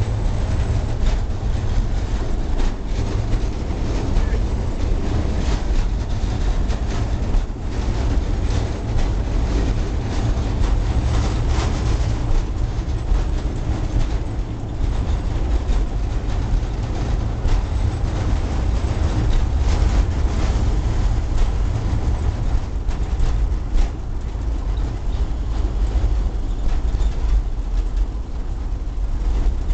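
Railbus running along the track, heard from inside the cabin: a steady low rumble with occasional knocks and rattles.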